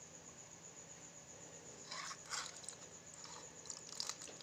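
A hand sloshing in a plastic bucket of water while scooping up small fish: faint splashes and drips, a short cluster about two seconds in and a few more near the end.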